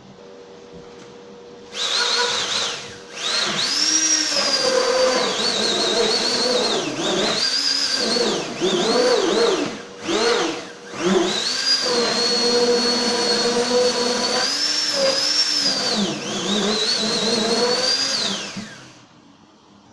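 Hand-held immersion (stick) blender running in a pot of liquid broth and chickpea-flour gravy base. Its motor whine swings up and down in pitch as it works through the liquid. It starts about two seconds in, dips briefly a few times, and stops near the end.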